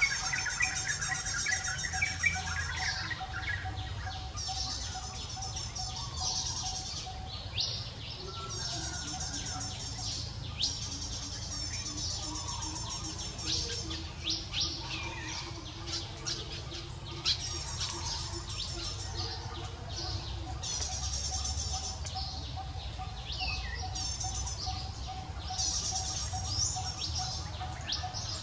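Birds chirping outdoors: high, rapid trilling phrases a couple of seconds long, repeating with short gaps, with a few short clicks in the middle.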